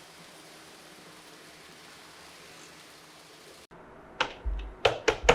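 Steady low hiss. After an abrupt cut about three-quarters of the way through, a quick run of five or so sharp clicks and taps of objects being handled.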